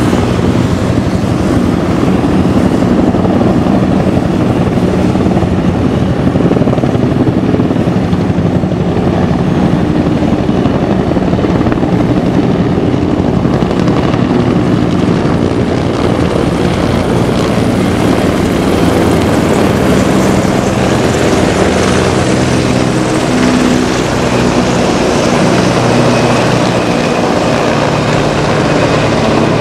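A formation of military helicopters flying low overhead, their rotors beating steadily in a loud, continuous chop.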